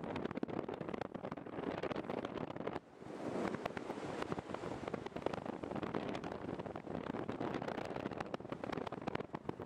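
Airflow buffeting the microphone of a camera carried in free flight: a steady rough wind rush with crackle, briefly easing about three seconds in.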